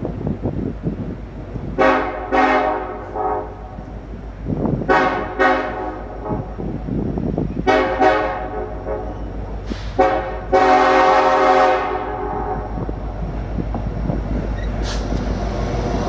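CN diesel freight locomotive's air horn sounding a string of short blasts in groups of two or three, then one long blast of about two seconds a little past the middle. Under it the locomotives rumble, growing louder as the train nears and passes near the end.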